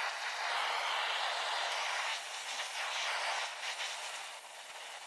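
Gas welding torch flame hissing steadily as it welds a seam in aluminium sheet, easing off somewhat about four seconds in.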